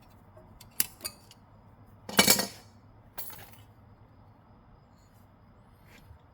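Small metal parts and hand tools clinking: two light clicks about a second in, then a louder metallic rattle about two seconds in and a shorter one a second later.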